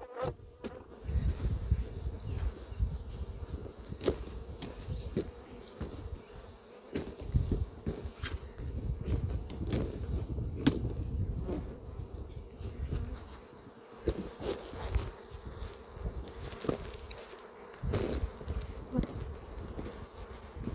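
Honeybees buzzing around a hive, a faint steady hum with scattered sharp clicks and a gusty low rumble.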